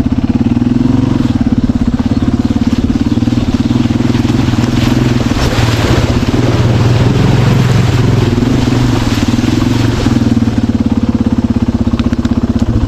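Dirt bike engine running under way with a fast, even pulse, its revs rising and dipping a little as it is ridden between rocks.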